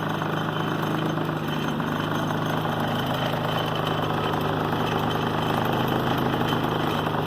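Predator 3500-watt inverter generator's single-cylinder engine running steadily, an even hum that holds one pitch.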